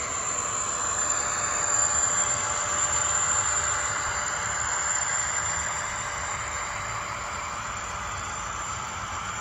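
Model train running past: a model diesel locomotive and its wagons rolling along the track with a steady high whine, loudest about two seconds in as the locomotive passes closest, then easing as it moves away.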